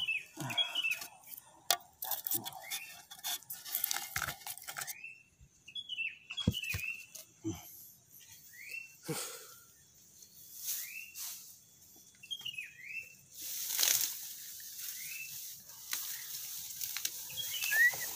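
Rustling and tearing of grass and weeds handled and pulled by hand, with scattered sharp crackles and snaps, growing denser near the end. A small bird repeats short chirps every second or two.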